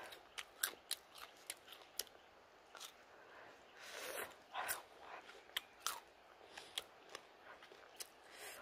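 Close-up chewing of grilled coconut worms (palm weevil larvae): irregular sharp crunching clicks, one or two a second, with softer mouth noise in between.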